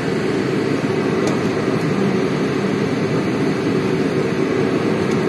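A steady mechanical hum with a rush of air, unchanging throughout, with a faint steady tone in it.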